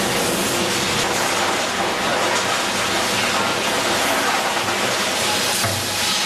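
Sawmill machinery running: a Grey Series 2000 reversing belt sawbench and its belt conveyors carrying sawn timber. A loud, steady mechanical noise with a few knocks from the timber.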